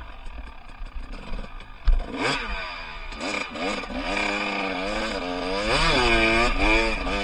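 Off-road motorcycle engine revving up and down as it is ridden over rough ground, with a sharp knock about two seconds in.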